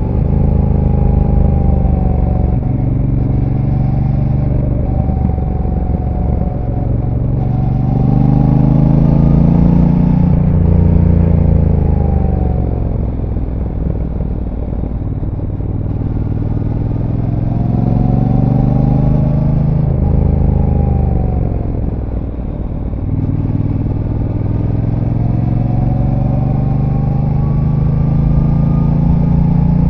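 Brixton Cromwell 1200's parallel-twin engine through its stock exhaust, heard from on board while riding. The revs rise under throttle and fall away as it eases off several times, as it would in a run of curves.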